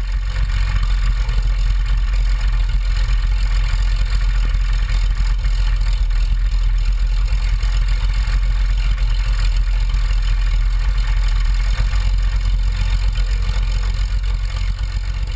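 Light aircraft's piston engine idling steadily on the ground, heard close up from a camera mounted on the airframe.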